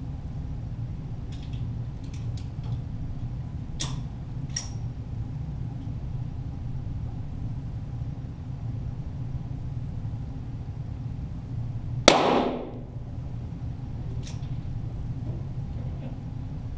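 .22 rimfire target pistols firing, heard from beside the target: a few faint sharp cracks in the first five seconds and another later, over a steady low hum. About twelve seconds in comes one much louder sharp crack with a short ringing tail.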